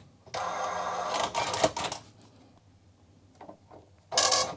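Commodore MPS 1500C dot matrix printer printing: the print head rasps across a line for about a second and a half, then after a quieter pause with a few faint ticks, a shorter, louder burst of printing comes near the end.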